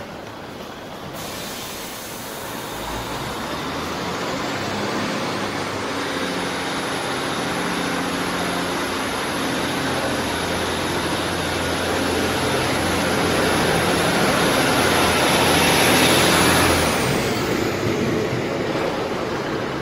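Class 156 Sprinter diesel multiple unit pulling away from the platform, its underfloor Cummins diesel engines working under power and growing louder as it passes close by. A high whine rides over the engine sound and falls away near the end.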